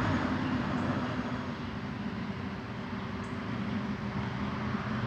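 A vehicle engine running steadily, a low, even hum with street noise.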